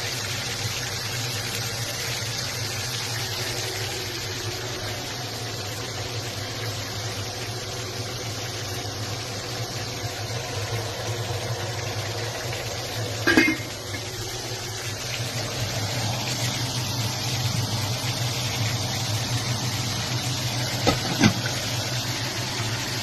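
Steady kitchen hiss with a low hum under it. A single clatter of cookware comes about halfway through, and two sharp knocks come near the end.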